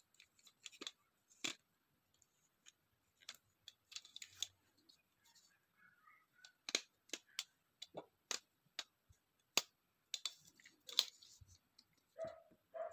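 Plastic clicks and clacks of a small phone-holder tripod being handled and adjusted: its spring phone clamp, tilting head and legs, in irregular sharp clicks.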